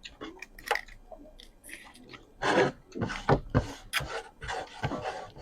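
Close-up eating sounds: chewing with irregular clicks, squelches and scrapes as crab is eaten and squeezed out of its shell, coming thicker after about two and a half seconds.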